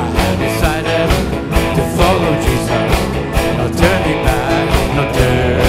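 Live rock band playing a gospel rock song, with drums keeping a steady beat under electric guitar and bass.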